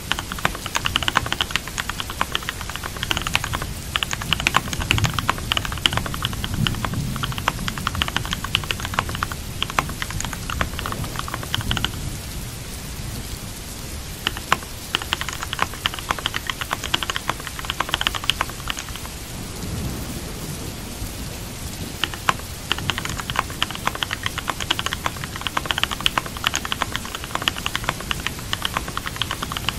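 Computer keyboard typing in quick runs of keystrokes over steady rain; the typing pauses twice for a couple of seconds, a little before halfway and about two-thirds of the way through. A low rumble swells about five to eight seconds in.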